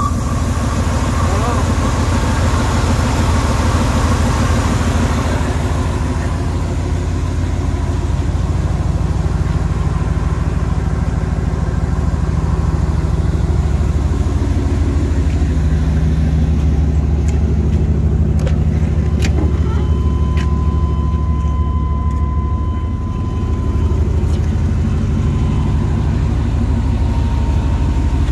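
Old GM plow truck's V8 engine idling loudly, with a thin high whine that comes and goes over the rumble. This is the terrible noise the owner can't place and later puts down to the alternator screaming.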